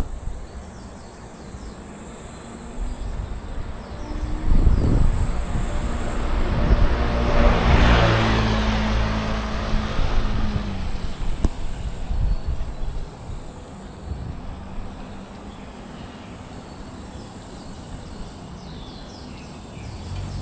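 Cicadas droning in a steady high-pitched chorus. A motor vehicle passes from about four to eleven seconds in, its rumble swelling and then fading.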